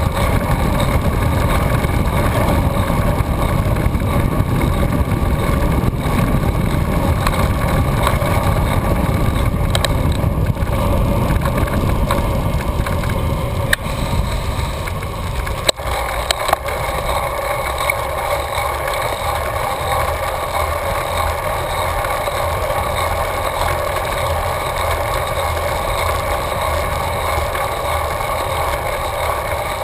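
Wind buffeting the microphone of a handlebar-mounted camera on a moving bicycle, a steady rumble over a constant hum. The low rumble eases somewhat a little past halfway, around a couple of sharp clicks.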